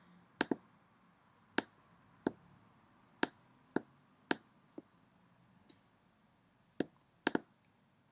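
Computer mouse clicking: about a dozen sharp single clicks at irregular intervals, a few in quick pairs.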